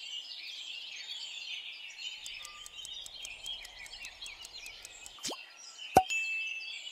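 Background birdsong, many small birds chirping, with a run of quick ticks in the middle. Near the end come two falling swoosh sound effects, the second and louder one about six seconds in, as the answer screen appears.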